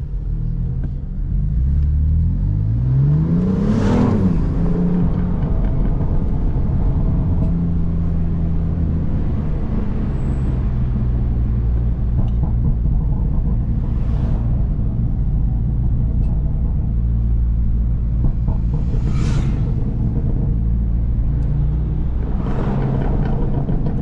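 BMW M3 exhaust: the twin-turbo straight-six revs up for about two seconds, then runs at a steady drone. A few short sharp exhaust crackles come through, the first as the revs peak and three more later on.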